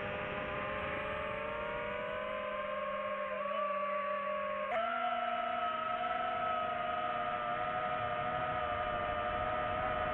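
DJI FPV drone's motors and propellers whining in flight, a steady hum of several tones that glide slowly. A little under halfway in the pitch jumps up suddenly as the motors speed up under more throttle, then holds steady.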